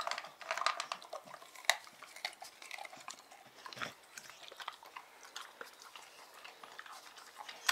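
American Staffordshire terrier eating kibble and rib bones from a steel bowl: irregular crunching and chewing clicks, busiest in the first half, with one sharper click about a second and a half in.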